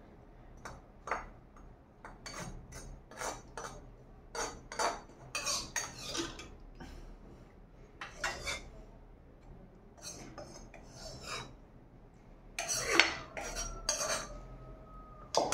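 A metal spoon scraping and clinking in a small black wok, in many short, irregular strokes, as excess oil is spooned off the fat. The strokes are loudest about thirteen seconds in.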